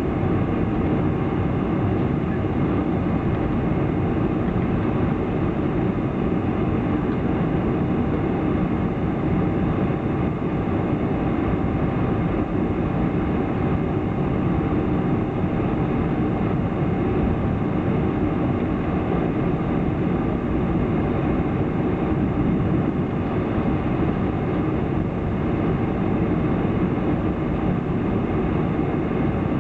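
Steady cabin noise inside a Boeing 747 taxiing, its engines at low taxi power with a continuous low rumble from the airframe and wheels.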